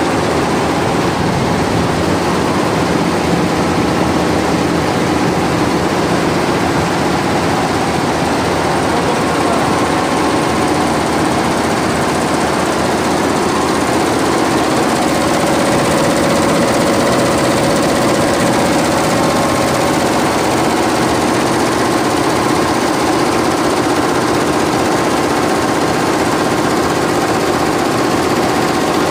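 Multi-head high-speed industrial embroidery machine running, many needle heads stitching at once in a loud, fast, steady mechanical rattle.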